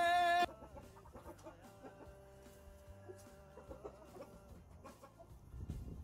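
A song with singing cuts off suddenly about half a second in, leaving faint clucking from Aseel chickens.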